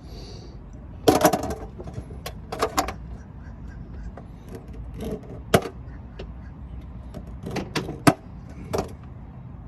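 Sharp clicks and snaps of hand tools cutting and stripping a corroded battery cable, with several separate strokes: a cluster about a second in, a single sharp snap near the middle, and another cluster about eight seconds in.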